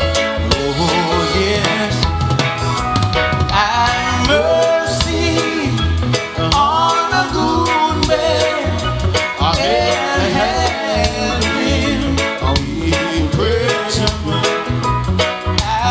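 Reggae-style music playing: a steady drum-kit beat over a bass line, with a melody line on top.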